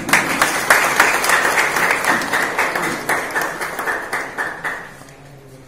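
A small group of people clapping by hand: a quick, irregular patter of claps that dies away about five seconds in.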